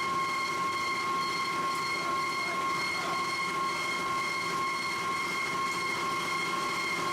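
Heavy forge-shop machinery running with a steady high whine and hiss, unbroken by any strikes.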